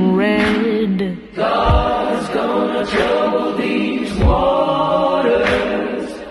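Gospel-style music: layered voices chant long held notes over a deep, slow beat that hits about every two and a half seconds.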